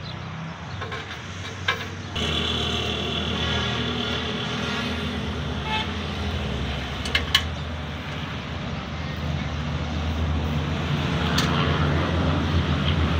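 An engine running steadily, getting louder about two seconds in, with a few sharp metallic clicks and knocks.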